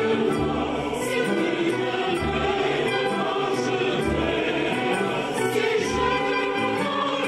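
Symphony orchestra and mixed choir performing operatic music: the choir sings over strings, with a low pulse in the bass about every two seconds.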